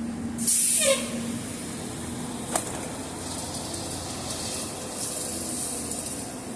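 City bus air system letting out a short, loud hiss of compressed air with a tone falling under it, then a sharp click a couple of seconds later and a softer stretch of hissing.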